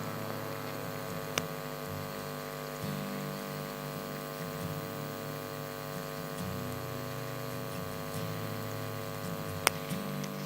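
Water boiling in a glass heated by a homemade two-razor-blade electrode heater running on mains current, with a steady electrical hum over it. A couple of sharp clicks, one about a second and a half in and one near the end.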